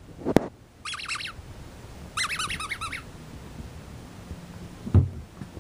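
A sharp knock, then two quick runs of rapid high squeaks, each squeak falling in pitch, from a dog's squeaky ball being squeezed. A dull thump comes near the end.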